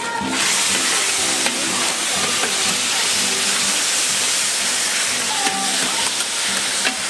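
Loud, steady sizzling of rice noodles, bean sprouts and shrimp frying on a hot flat-top steel griddle, with metal spatulas clicking and scraping on the steel as the food is tossed. The sizzling sets in abruptly just after the start.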